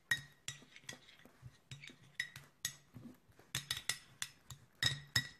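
Metal spoon stirring ground coconut and milk in a small glass dish, clinking against the glass in a run of irregular light taps, with a cluster of louder clinks a little past halfway and again near the end.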